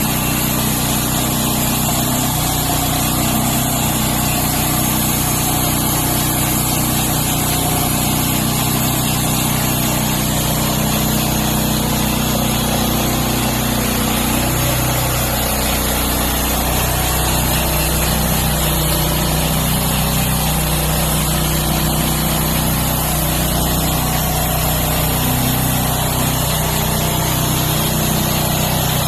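Engine of a homemade sawmill running steadily, its low pitch shifting a little about halfway through.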